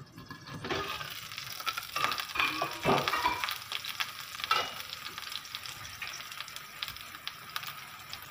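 Hot oil sizzling and crackling in a frying pan around green chillies stuffed with ground chicken, swelling about a second in as the glass lid comes off, then a steady sizzle. A few knocks of metal on the pan cut through it.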